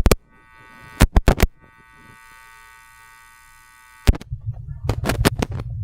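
A steady electric buzz that stops suddenly about four seconds in, with sharp knocks near the start and about a second in. It gives way to a low rumble with more knocks near the end.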